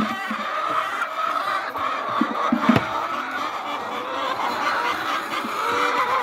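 Many hens clucking and cackling together. A couple of short thumps sound about two and a half seconds in.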